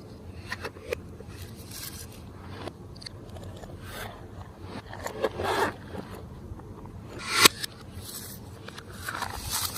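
Glossy slime being squished and stretched by hand: sticky crackles and swishes, with a sharp pop about seven and a half seconds in.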